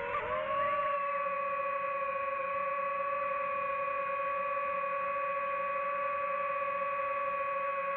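Ambient background music: one sustained, steady tone with overtones, its pitch dipping and settling just after the start.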